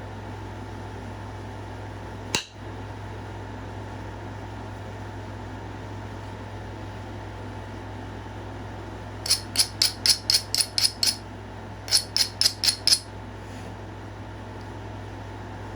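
Flintknapping: one sharp click of stone on stone, then two quick runs of light, crisp taps, about four or five a second, as the edge of a stone point is worked. A steady fan hum runs underneath.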